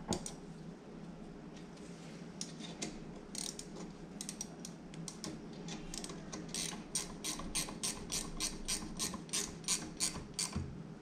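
Hand ratchet wrench clicking as bolts on a Honda XR70 engine are snugged up. Scattered clicks at first, then a steady run of about three to four clicks a second in the second half.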